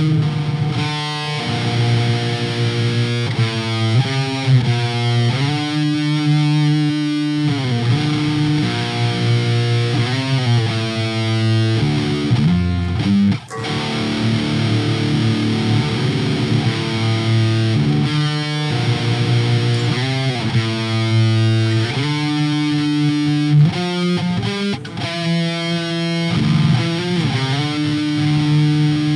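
First Act jazz-style electric guitar played through distortion, chugging heavy metal riffs in D standard tuning, with a brief break about thirteen seconds in.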